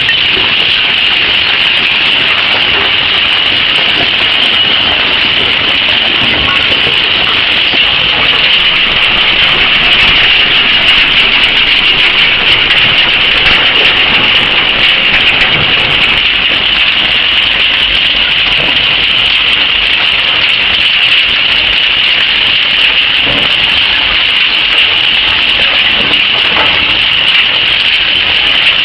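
Industrial metal shredder running and shredding aluminium scrap such as engine blocks and car wheels: a steady, loud din with a strong high hiss and faint scattered knocks.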